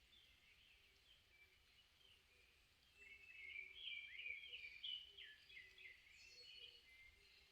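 Faint chirps and short swept calls of several songbirds, thickest from about three to five seconds in.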